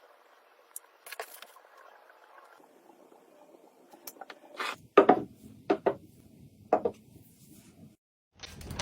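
Kitchen items and storage containers being handled and set down during fridge restocking: a string of separate sharp clicks and knocks, loudest about five seconds in.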